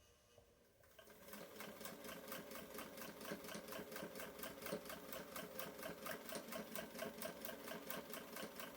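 Singer Featherweight 221 electric sewing machine starting up about a second in and stitching at a steady pace, an even, rapid clatter of needle strokes.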